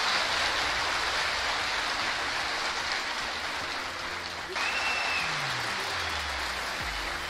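A large indoor crowd applauding steadily, rising slightly about four and a half seconds in.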